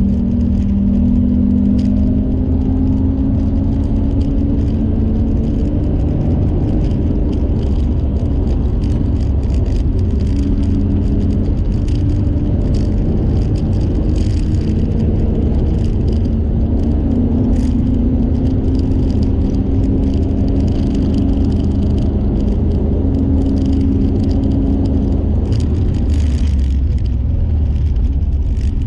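Car engine running hard at speed under heavy road and wind rumble. Its pitch climbs, then falls back several times as it shifts through the gears.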